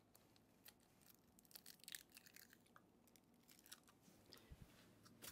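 Near silence with faint, scattered clicks and crackles as eggs are cracked and worked into a bowl of buttermilk.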